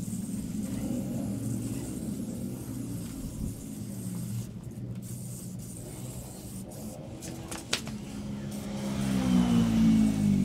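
Motorcycle engine running, its pitch and loudness rising in the last couple of seconds as it is revved. There is one sharp click about three-quarters of the way through.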